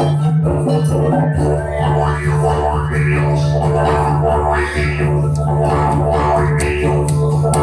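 Wooden didgeridoo droning on a steady low note, its overtones sweeping rhythmically about once a second, with a deeper layer joining about a second and a half in. Steel handpan notes ring alongside it.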